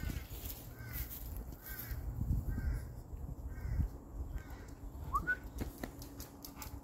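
A bird calling repeatedly: about seven short, harsh, crow-like calls a little under a second apart, then a single short rising whistled note about five seconds in.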